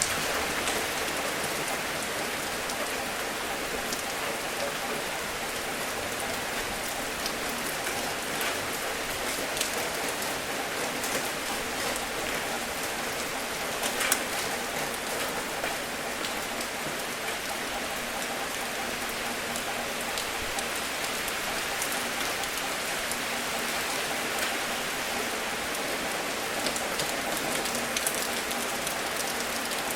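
Steady rain falling, a constant hiss dotted with the small ticks of individual drops, with one louder tap about halfway through.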